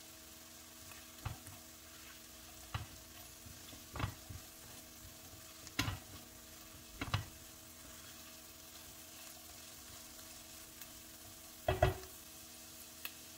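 Diced carrots and onion frying in oil with tomato paste in a granite-coated pot, a steady faint sizzle, with a silicone spatula stirring in short strokes every second or two, the loudest stroke near the end.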